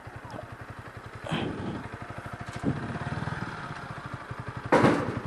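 An engine idling with a steady, rapid low pulsing. Brief faint shouts come about a second and a half in and again near the end.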